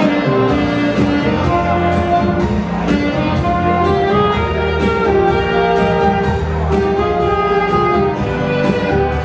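Two saxophones playing a melody together in a duet over a recorded accompaniment with bass and strings.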